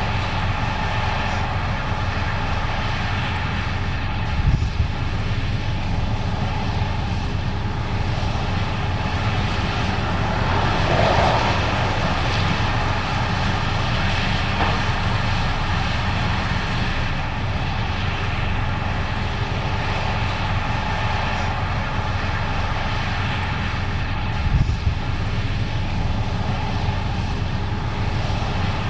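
Case IH 8250 Axial-Flow combine running steadily, a continuous diesel engine drone with machinery noise. Two short thumps stand out, about four seconds in and again about twenty-four seconds in.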